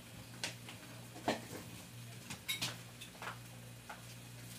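Cooking oil heating in a metal pot, giving a few scattered small pops and crackles.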